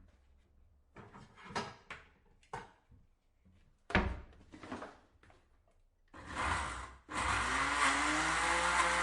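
Electric kitchen blender: scattered knocks and clatter of handling for the first few seconds, a short run of the motor about six seconds in, then the motor switched on and running steadily near the end, its pitch rising as it spins up.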